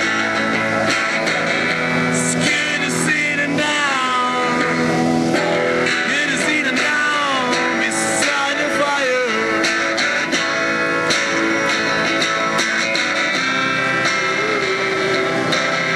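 Music playing steadily.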